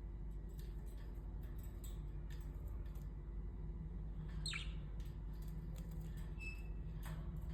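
Budgies pecking seed from a food plate: a scatter of small, quick clicks and taps, with one short budgie chirp about halfway through.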